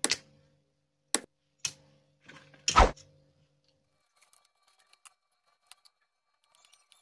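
Sharp clicks and knocks of small hard objects, a ruler and a screwdriver, being handled and set down on a table. There are four in the first three seconds, the loudest near three seconds in, then only a few faint ticks.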